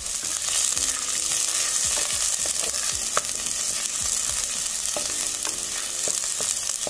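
Hot oil and fried onions sizzling in a clay pot just after water has been poured in, stirred with a wooden spoon that knocks lightly against the pot now and then.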